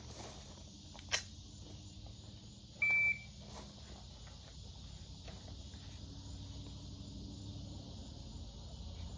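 Electronic shot timer giving a single steady high-pitched start beep about three seconds in, lasting under half a second. A sharp click comes about a second in.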